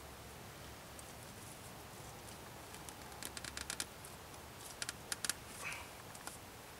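Thin cord being drawn tight around a wooden post, creaking in two quick runs of sharp clicks, the first about three seconds in and the second about five seconds in, followed by a brief squeak.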